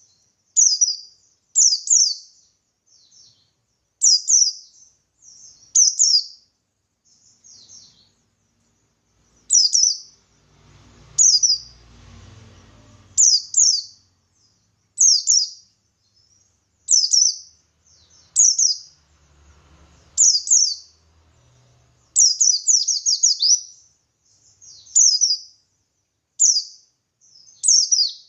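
Pleci buxtoni white-eye singing in short, high chirping phrases about every second or two, each a quick run of falling notes. This is the energetic 'gacor ngalas' wild-style song that is played to get other white-eyes to answer. A faint low rumble sits under the song twice.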